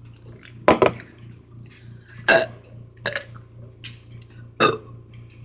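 A few short, bubbly burps brought up by gulped carbonated soda.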